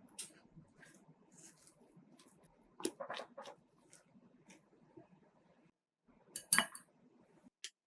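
Light clinks and scrapes of kitchen utensils against kitchenware while preparing cake batter, with the loudest knocks about three and six and a half seconds in.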